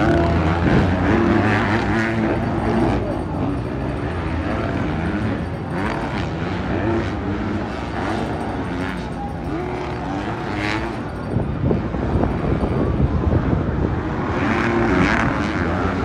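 250cc motocross bikes racing around a dirt track. Their engines rise and fall in pitch as the riders open and close the throttle, with crowd voices underneath.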